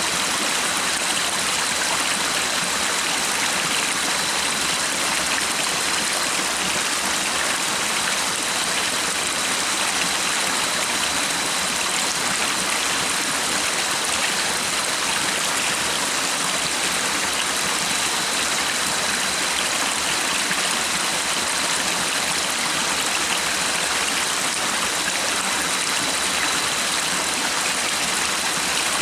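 Stream water running steadily, an even rushing that never changes, with a faint steady high tone above it.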